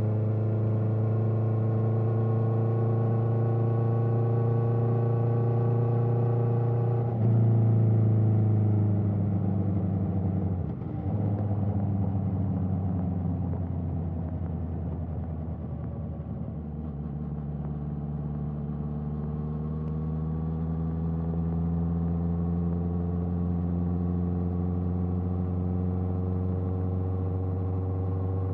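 Honda CBR650R's inline-four through an Akrapovic exhaust, running under way. Steady for the first seven seconds, then a sudden louder jump in engine note, a brief dip about eleven seconds in, a quieter stretch, and from about halfway the pitch climbs slowly as it pulls up through the revs.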